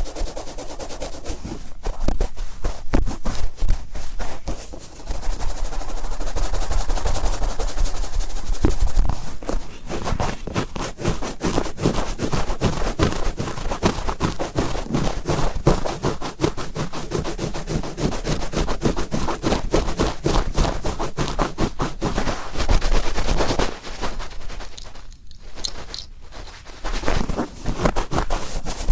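Cotton swab twisted and rubbed firmly in an ear, a dense crackly scratching made of rapid clicks, easing briefly near the end before picking up again.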